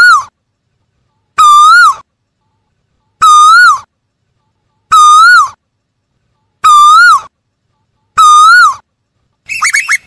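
Male Asian koel calling: a loud, repeated two-part whistled call, held then swooping up and down, about every second and a half, six times. Near the end it breaks into a fast bubbling run of shorter, higher notes.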